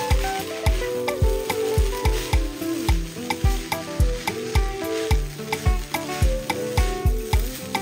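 Fried rice sizzling in a pan while a spatula stirs and scrapes through it, over background music with a steady kick-drum beat.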